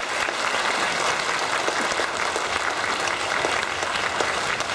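Theatre audience applauding: many hands clapping at once, dense and steady.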